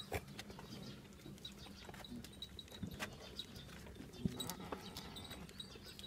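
A kid goat suckling at its mother's udder: soft, irregular sucking clicks and smacks over a faint low hum.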